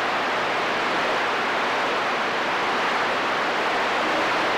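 CB radio receiver static: a steady hiss on an open channel with no one transmitting.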